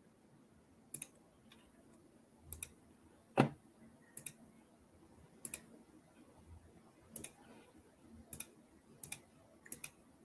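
Computer mouse clicking: irregular single and double clicks about once a second, the loudest a little over three seconds in, over a faint steady low hum.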